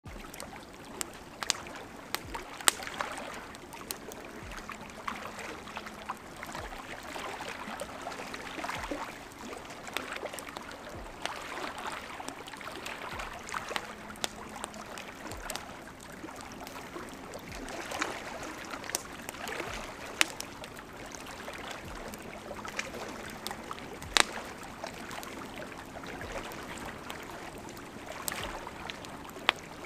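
Wood bonfire crackling, with sharp irregular pops, over small waves lapping in gentle swells against a rocky lakeshore.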